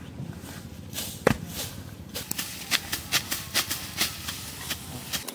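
Tall grass being cut by hand, a quick run of short, sharp snaps, several a second, starting about two seconds in. A single thump comes about a second in.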